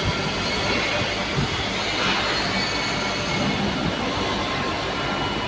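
Vibratory stress relief exciter, an electric vibrator motor clamped to a large welded steel ring, running steadily at about 3,130 r/min to shake the workpiece during stress-relief treatment. The sound is a steady mechanical noise with a few faint high tones held throughout.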